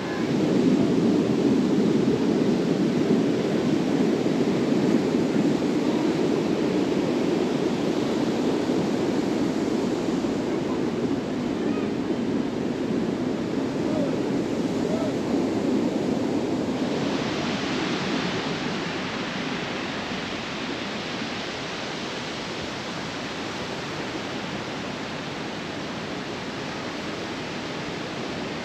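Steady rushing of wind and sea surf on a beach, heavy and low for about the first seventeen seconds, then abruptly turning into a brighter, thinner hiss.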